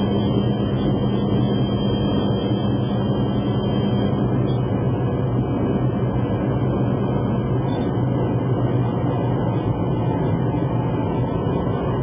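Engines of an Aero Commander Shrike, a twin piston-engine airplane, running in a steady drone with a low hum.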